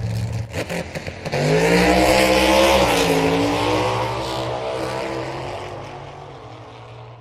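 A motor vehicle's engine, its pitch rising then dipping as it grows loud about a second in, then fading away steadily, over a low steady hum.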